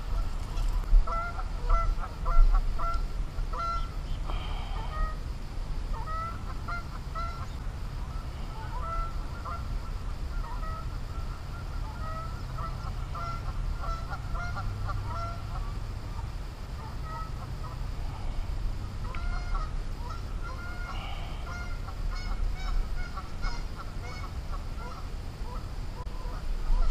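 Several geese honking, many short calls overlapping in flurries, with a lull about halfway through.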